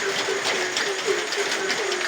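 Frogs croaking in a chorus, short low calls repeating about four times a second and overlapping, over the steady hiss of rain.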